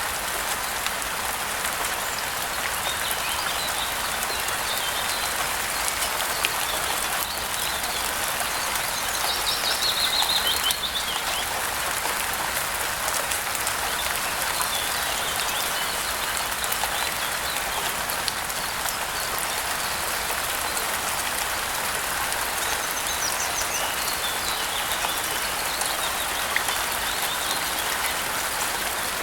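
Steady rain falling, with small birds chirping now and then above it; the most chirping comes about a third of the way in.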